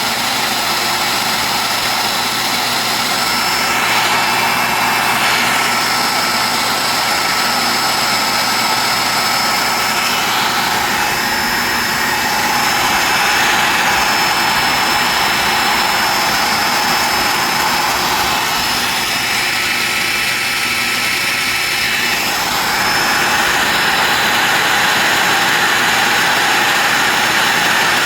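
Dumore tool post grinder running with a steady high whine, its small stone grinding the hardened jaws of a 3-jaw lathe chuck during a light pass of a couple thousandths, the chuck turning slowly in back gear under power feed. The grinding hiss swells and eases several times as the stone feeds across the jaws.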